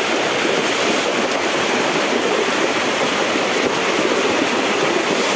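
Heavy rain and running floodwater making a steady, loud rushing hiss.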